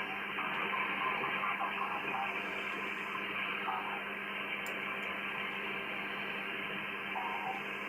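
Amateur radio receiver audio tuned to the 80-metre band: steady band hiss with a low hum tone, broken by short patches of data-like tones from the picture-drawing transmission.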